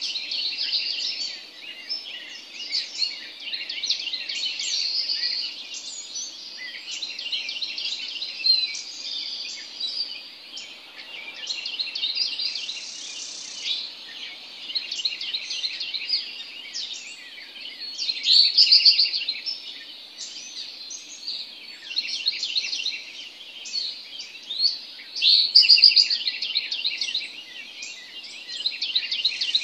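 Several songbirds singing together in a morning chorus: overlapping rapid chirps and trills that go on without a break, with a few louder phrases in the second half.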